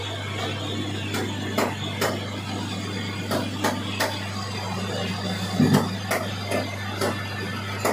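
Metal lathe running, a cutting tool turning a steel shaft: a steady motor hum with irregular sharp clicks and ticks scattered through it.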